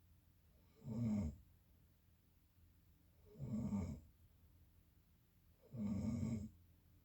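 Snoring in sleep: three snores about two and a half seconds apart, each lasting about half a second.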